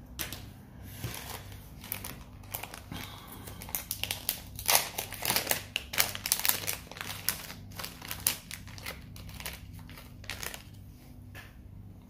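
Crinkly rustling and many small clicks of small parts and plastic being handled by hand, busiest from about four seconds in until near the end.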